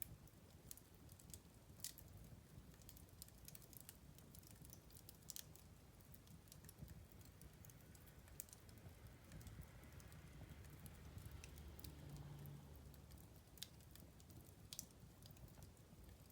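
Wood fire crackling faintly: scattered sharp snaps and pops, thickest in the first few seconds, over a low rumble of the flames.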